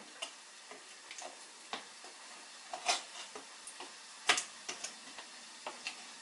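Metal kitchen tongs clicking and tapping in a plastic measuring cup while coating a cookie in pancake batter: about ten irregular sharp clicks, the loudest about three and four seconds in. A faint steady hiss of oil frying sits underneath.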